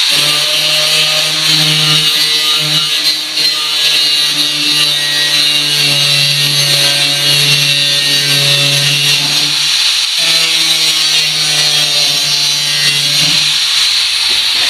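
DeWalt angle grinder grinding through the rusted, folded-over steel edge of a pickup bed's wheel opening: a steady whine under a gritty, hissing grind. It breaks off briefly about ten seconds in, and the whine drops out near the end.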